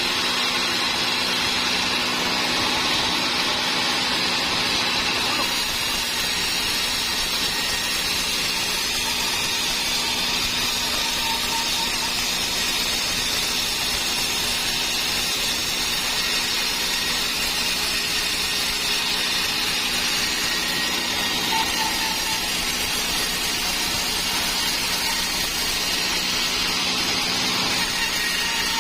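Sawmill saw running steadily while cutting dry teak timber: a continuous dense hiss over a low machine hum, with no breaks.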